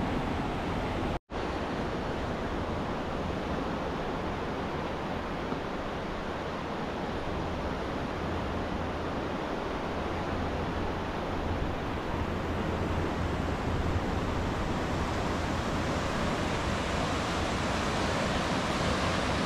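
Sea surf washing onto a beach as a steady rush, with wind rumbling on the microphone. The sound cuts out for a moment about a second in.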